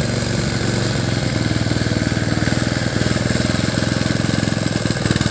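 Small engine of a walk-behind field machine, such as a power tiller, running steadily with a fast, even beat.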